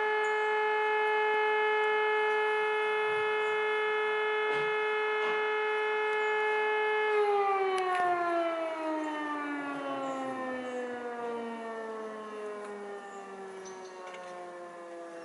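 E57 electromechanical rotor siren holds a steady, loud tone for about seven seconds. Then it winds down, its pitch sliding slowly lower as it fades. It is sounding the alarm that calls out the volunteer fire brigade.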